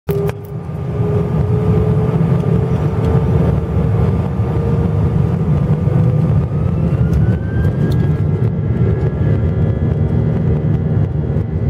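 IAE V2500 turbofan of an Airbus A320 spooling up for takeoff, heard from the cabin seat beside it: a loud, steady rumble with a whine that climbs in pitch, rising most around the middle, as the aircraft starts its takeoff roll. A few handling clicks at the very start.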